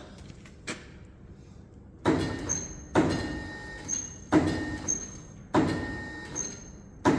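Hammer blows on metal, five strikes about a second apart, each followed by a lighter rebound tap and a short metallic ring. They are knocking out pop rivets that did not set because the gun's jaws were not gripping the stems.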